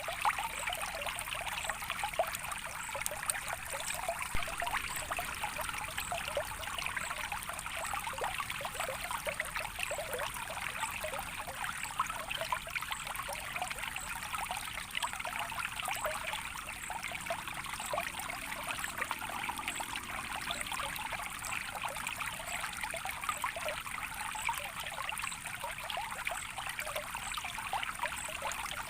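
A small stream trickling steadily, a constant light babble of running water without a deep rumble.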